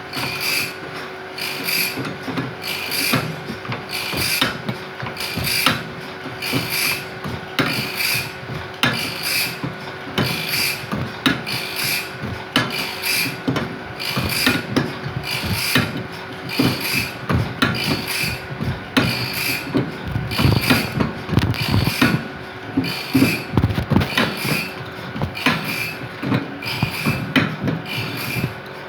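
Hand file cutting teeth into a bandsaw blade, in steady repeated rasping strokes about three every two seconds.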